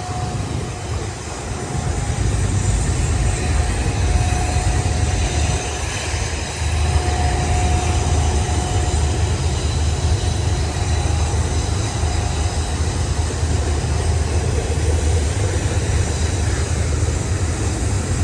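Long loaded auto-rack freight train rolling past close by: a steady low rumble of wheels on rail, with a faint thin tone coming and going above it.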